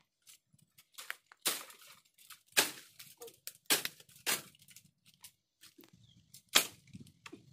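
Irregular sharp cracks and snaps of dry bamboo stems and twigs, with crackling and tearing of dry leaves between them, as a bamboo clump is broken into by hand.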